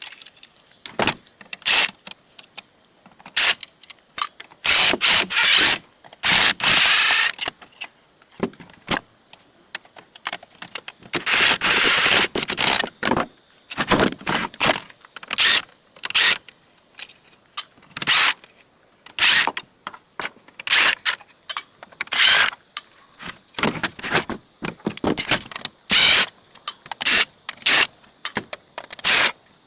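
Small metal parts and hand tools clinking and clattering on a metal electronics chassis during disassembly: many irregular sharp clicks, with a few longer rattling scrapes about five and twelve seconds in.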